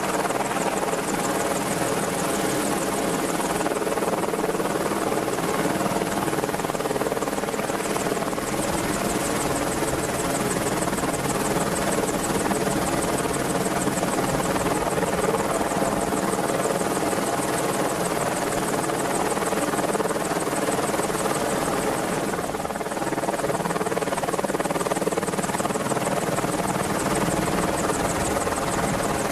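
Merlin helicopter running steadily: a continuous rapid rotor beat over steady engine tones, easing slightly for a moment about three quarters of the way through.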